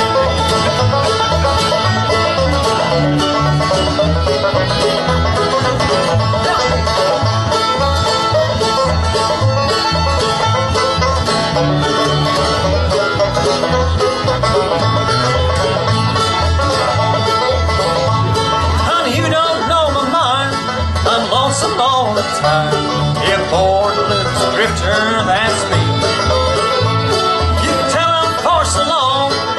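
Live bluegrass band playing at an even tempo: rolling five-string banjo, acoustic guitar, mandolin and fiddle over an upright bass that plucks a steady beat.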